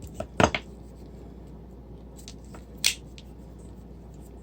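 Metal clicks of a Leatherman Rebar multi-tool as a tool is unfolded from it, a sharp click about half a second in and another about three seconds in, with small ticks between them.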